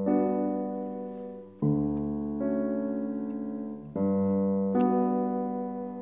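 Short piano interlude: a run of sustained chords, each struck and slowly fading, with a new chord every one to two seconds.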